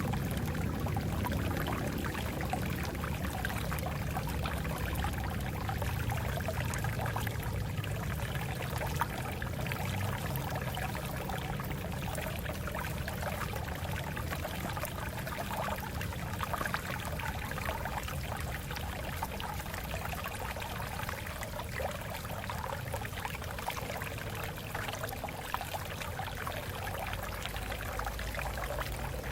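Stream water running and splashing over rocks, a steady rushing and burbling with small splashes now and then.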